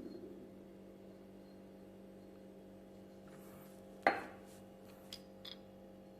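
Washed metal parts of a disassembled electric impact wrench being handled on a hard surface: one sharp clink about four seconds in, then a few light clicks, over a steady low hum.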